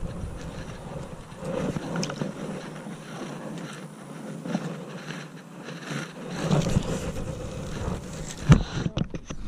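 Wind buffeting a chest-mounted camera's microphone, mixed with jacket fabric rubbing against it as the rod is cast and reeled, in irregular swells. A single sharp knock comes near the end.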